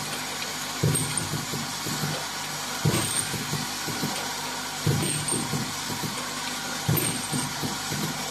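Desktop dropper-bottle filling and capping machine running: a steady hum under a regular work cycle about every two seconds, each cycle a sudden knock followed by a brief clatter as the turntable indexes and the capping head works, with a short hiss of air from the pneumatic cylinders.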